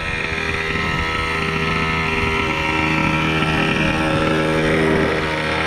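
Gas two-stroke engine of a large-scale Primal Raminator RC monster truck, running at a steady speed and getting a little louder after a couple of seconds.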